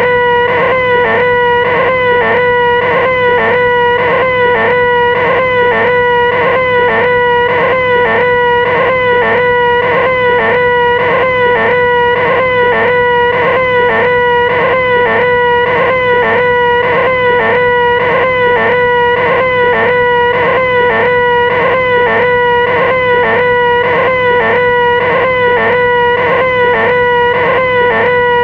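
A person's high, nasal, held 'ahhh' scream, the 'most annoying sound in the world' gag, kept going without a break at one steady pitch. A small wobble repeats over and over at even spacing, as if the same short scream were looped.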